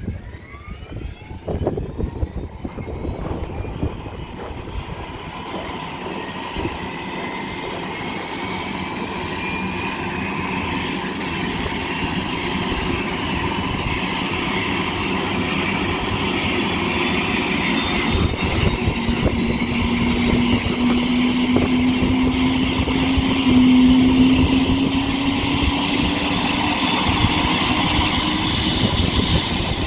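Turbine engine of a Johanniter air-rescue helicopter starting up: a whine rises in pitch over the first ten seconds or so. About two-thirds of the way in, a steady low tone appears and climbs slowly as the rotor runs up, and the whole sound grows gradually louder.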